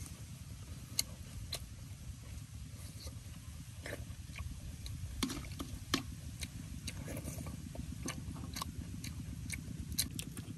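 Eating sounds: a metal spoon clicking and scraping against a large aluminium wok, with slurping and chewing of spicy fish soup, heard as irregular sharp clicks over a steady low rumble.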